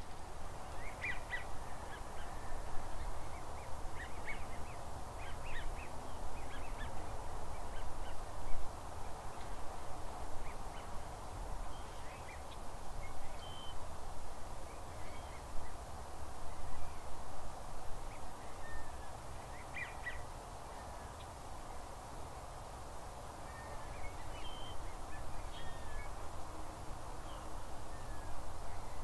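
A flock of geese and ducks calling, many short honks and calls scattered through, some overlapping, over a steady low background rumble.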